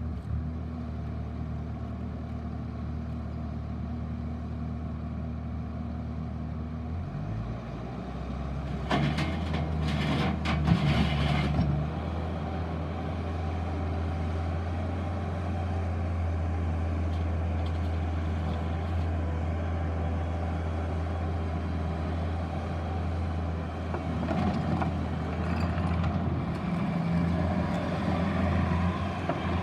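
Bobcat T650 skid steer's diesel engine running at a steady low speed, then revving up about seven seconds in and holding the higher speed. Sharp clanks come a few seconds after the rev-up, and there is some uneven working noise near the end.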